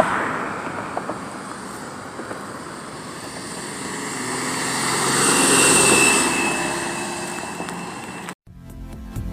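Engine noise that slowly swells to its loudest about six seconds in and then fades, with a thin high whistling tone at the peak. It cuts off suddenly near the end.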